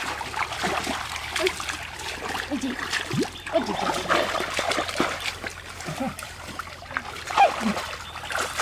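Hands splashing and sloshing irregularly in shallow muddy water as people grope for fish by hand.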